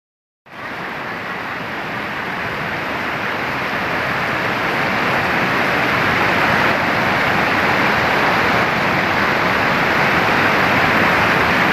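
Shallow rocky river rushing over boulders and rapids: a steady rush of water that starts about half a second in and slowly grows louder.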